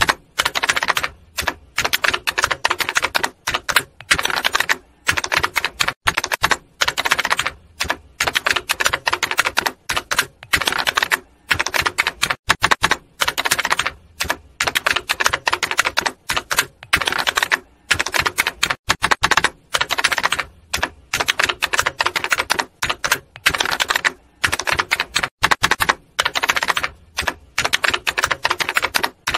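Typewriter typing sound effect: rapid key clatter in runs separated by short pauses.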